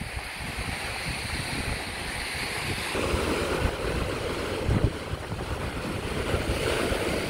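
Ocean surf breaking and washing over shoreline rocks, with wind buffeting the microphone. The noise grows louder about three seconds in, with one heavy gust near the end.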